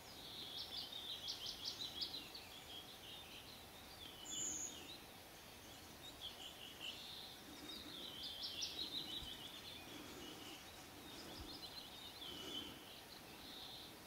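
Small songbird singing: several phrases of quick, high repeated notes, with a single higher note about four seconds in, over a faint steady outdoor hush.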